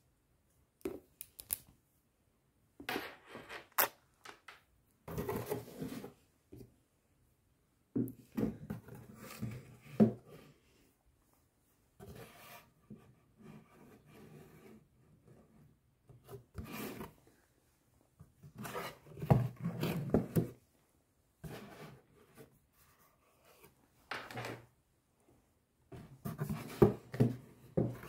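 Unboxing handling noise: a cardboard box, a USB charging cable and a soft Molang lamp rubbed, shifted and knocked by hand in irregular bursts of a second or two, with short silences between and a few sharper knocks.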